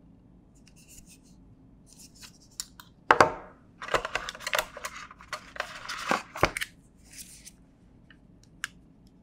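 Hands handling smartphone packaging: a sharp knock about three seconds in, then a few seconds of scratchy rustling and scraping ending in another knock, with small clicks before and after.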